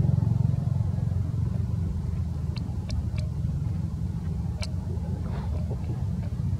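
A low, steady rumble, with a few faint sharp clicks in the middle.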